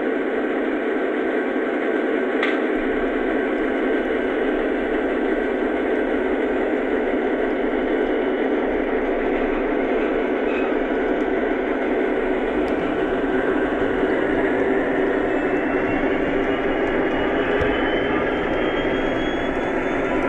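O-scale model train running on the track: a steady whirring rumble of wheels and motor, with a faint whine rising in pitch near the end.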